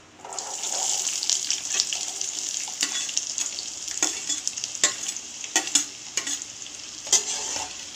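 Chopped shallots tipped into hot oil in a pan, setting off a sizzle that swells just after the start and keeps frying, with a few sharp clicks scattered through it.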